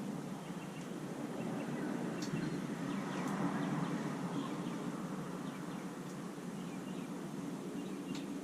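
Outdoor background: a steady low rumble with a few faint, brief bird chirps.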